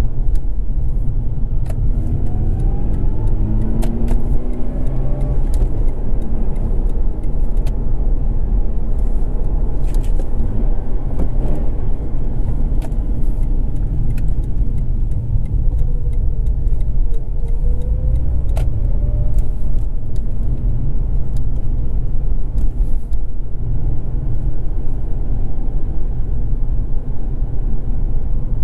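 Mazda RX-8 driving through town: a steady low rumble of engine and road noise. The engine note rises as it accelerates about two seconds in and again a little past the middle.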